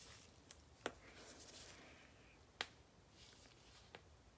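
Near silence: quiet room tone broken by a few faint, sharp clicks, two of them clearer than the rest.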